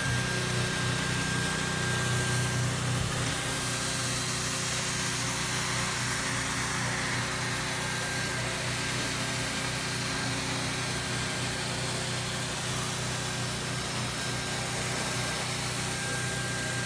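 BAK RoofOn R automatic hot-air edge welder running as it drives itself around a pipe boot, welding the TPO/PVC membrane: a steady hot-air blower hiss over a motor hum, with a thin whine that comes and goes.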